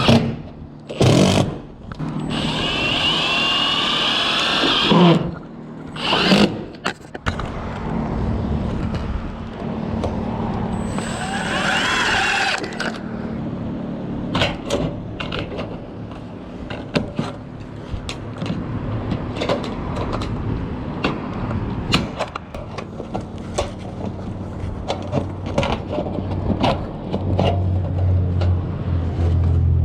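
Cordless drill driving screws into metal roofing panels and trim, its motor whining up and down in bursts, followed by many short knocks and clicks of metal being handled and fastened.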